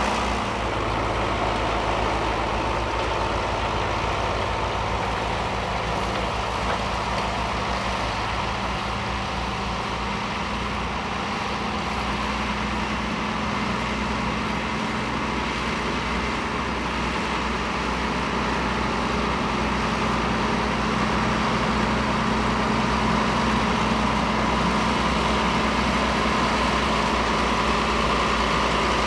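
Ford tractor diesel engines running steadily under load, pulling mounted ploughs through the soil.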